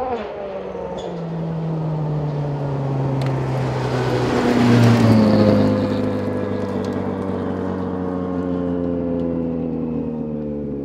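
Ford Fiesta WRC rally car engine: its note drops sharply right at the start as the throttle comes off, then runs as a steady engine drone whose pitch slowly sinks, with a loud rush of noise about halfway through.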